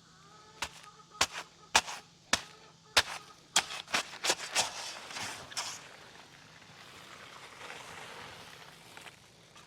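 About ten sharp knocks and slaps, the last ones closer together, then a few seconds of steady hiss as dry concrete mix pours from a bag into a post hole.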